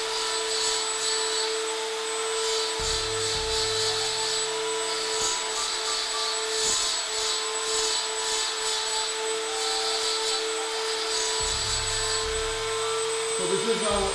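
Hand-held rotary tool running at a steady high whine, its small burr grinding into antler with an uneven, scratchy sound that comes and goes as the tool is worked in short strokes to engrave a design.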